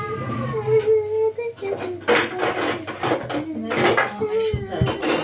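Metal cutlery and utensils clattering and clinking in a kitchen drawer as it is rummaged through, with several sharp clinks from about two seconds in. A steady held tone runs underneath.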